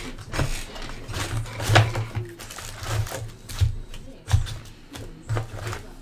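Sealed trading-card box and foil packs being opened and handled: irregular crinkling and tearing of wrappers, with clicks and soft knocks of cardboard and cards on the table.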